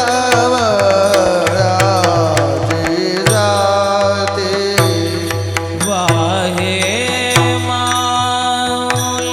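Warkari kirtan music: a voice singing a long, wavering melismatic line over steady held harmonium-like tones, with regular drum strokes and small hand-cymbal clashes keeping the beat.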